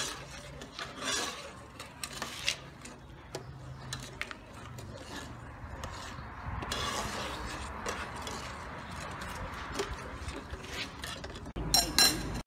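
Metal ladle stirring and scraping inside an aluminium cooking pot of hot liquid, with scattered clicks against the pot's sides, then a steadier swishing stir in the second half. A few loud sharp knocks with a brief ring near the end.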